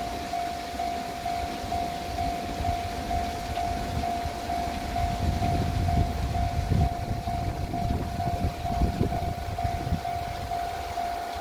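Railway level-crossing warning alarm ringing: one electronic tone pulsing fast and evenly, over a low gusty rumble of wind on the microphone.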